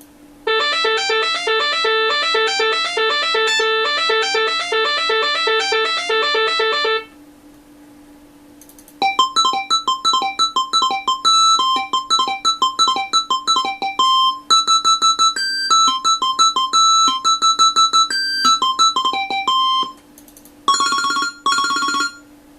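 Nokia 3585 ringtones played as MIDI through a Sound Blaster Live! sound card with the Mobile60 soundfont. One tune of fast, quickly repeated electronic notes stops about seven seconds in. After a short pause comes a second, choppier melody of short notes, then two brief notes near the end. A faint steady hum sits underneath.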